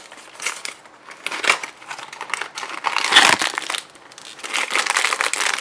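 Crinkling and crackling as a cardboard blind box is opened and the foil bag inside is pulled out and handled, in irregular bursts, loudest a little after three seconds in.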